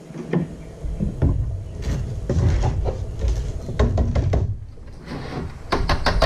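Plastic housing of a Mosquito Magnet Patriot Plus power head being pulled apart and handled: irregular plastic knocks, clicks and scrapes, with a quick run of sharp clicks near the end.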